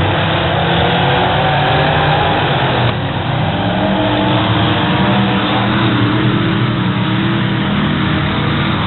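Several dirt-track race cars' engines running hard around the oval: a loud, continuous mix of engine notes that rise and fall as the cars accelerate and pass.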